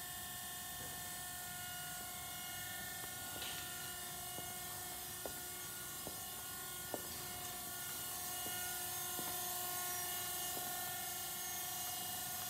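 Steady machine hum made of several high tones held at a constant pitch over a low hiss, with a few faint clicks and a slight swell in level partway through.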